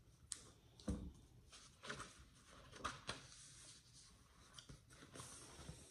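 Faint rustling and tapping of a hardcover picture book being handled and opened, with a small soft knock about a second in and quiet room tone between.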